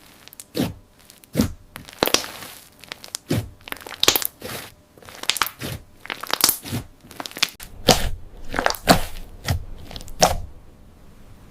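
Hand-squeezed hybrid of foam slime and glossy slime, giving off irregular sharp crackles and pops as it is mixed and pressed. The crackling stops near the end.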